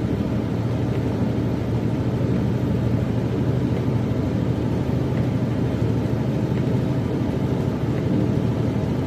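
Steady engine and road rumble heard inside a moving vehicle's cabin, even throughout.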